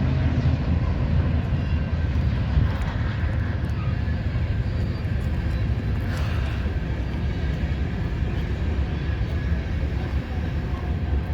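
BNSF coal train rolling past, a steady low rumble of the train moving over the bridge.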